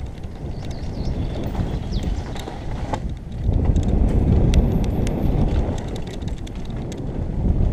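Downhill mountain bike ridden fast over a dirt trail, heard from a helmet-mounted camera: wind rumbling on the microphone, tyres rolling over dirt and loose stones, and the bike clattering over bumps. It gets louder a little before halfway through, then eases off.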